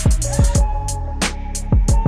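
Background music with a steady hip-hop-style beat: deep bass drum hits that drop in pitch, quick hi-hat ticks and held synth notes.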